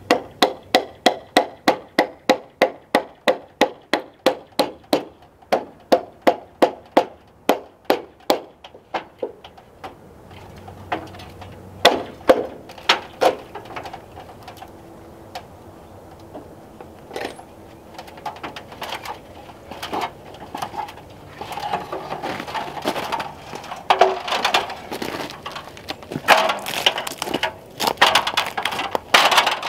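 Hammer blows on wood: a steady run of about three strikes a second for the first nine seconds, then scattered knocks and irregular clattering of lumber.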